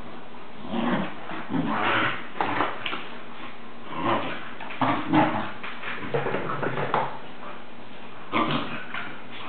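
Springer spaniel puppy making short dog sounds in irregular bursts as she plays with a toy.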